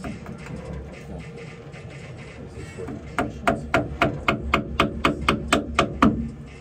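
A hammer striking rapidly: about a dozen blows at roughly four a second, starting about three seconds in, each ringing briefly. A steady low hum runs underneath.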